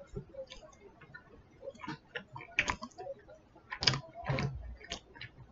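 A person chewing boneless chicken bites in barbecue sauce: scattered wet mouth clicks and smacks at irregular moments, the loudest about two and a half and four seconds in.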